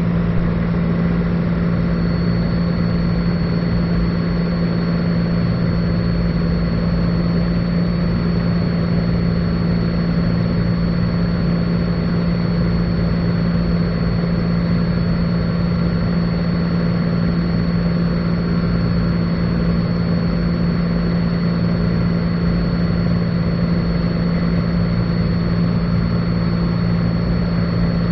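Cessna 182 Skylane's piston engine and propeller droning steadily in flight, with no change in power. A thin, steady high whine joins in about two seconds in.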